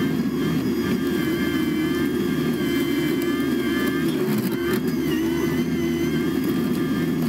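Caterpillar 297C compact track loader's diesel engine running steadily under load, with the high whine of its hydraulically driven bush hog cutting brush. The whine dips briefly in pitch about five seconds in as the cutter works into thick bushes.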